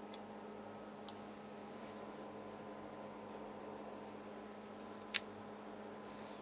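Faint scraping and cutting sounds as fat and membrane are trimmed from a piece of beef chuck roast, with two sharp clicks, about a second in and about five seconds in, the second louder, over a steady electrical hum.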